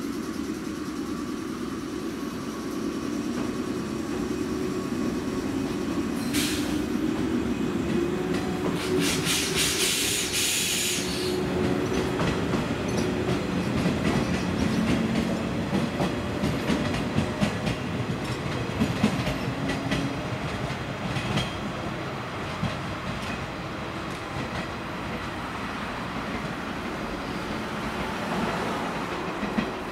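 Yellow JR West local electric train pulling out of the station: its traction motor whine rises slowly in pitch as it accelerates, with a short hiss about nine seconds in, then its wheels clicking over the rail joints as it draws away and fades.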